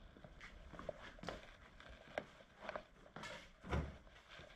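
Faint footsteps and scattered light taps on a garage floor, the loudest a dull thump about three-quarters of the way through.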